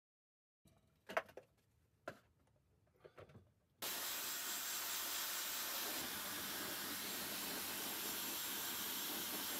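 A few short, sharp clicks, then a handheld hair dryer blowing steadily from about four seconds in.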